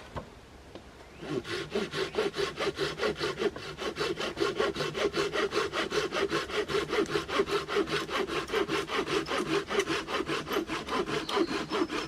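Silky Gomboy folding pull saw cutting through wood with quick, even strokes, starting about a second in.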